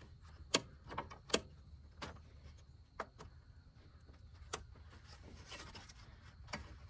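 Aluminium A/C refrigerant lines clicking and tapping against the plastic radiator support as they are worked through it by hand, with light rubbing. About eight sharp clicks come at uneven intervals, with a soft scraping rub a little past the middle.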